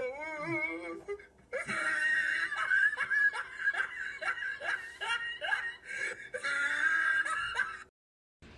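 Loud, hard laughing, one falling 'ha' after another, about two a second, after a short wavering cry at the start. It stops abruptly near the end.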